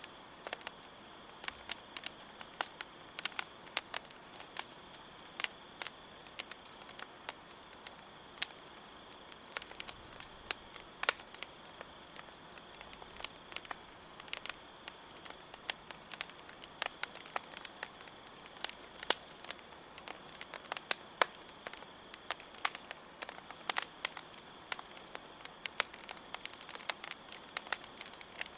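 Campfire burning with irregular crackles and occasional louder pops of burning wood, over a steady high chirring of crickets.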